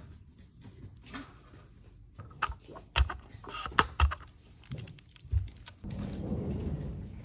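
A string of sharp clicks and knocks, about half a dozen over three seconds, like small hard objects being handled. They are followed near the end by about a second of denser rustling.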